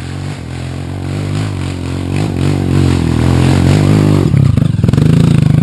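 Dirt bike engine coming up the trail, growing steadily louder, then running close by under throttle with a rapid, choppy beat from about four seconds in.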